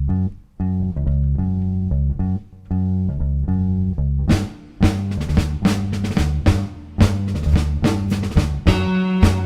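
Live rock band starting a song: a bass guitar plays a repeating low figure of held notes, and a drum kit comes in about four seconds in.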